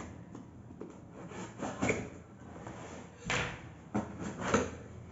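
Cardboard shipping box being opened and handled: a few short scrapes and knocks, the clearest about two seconds in and again between three and a half and four and a half seconds in.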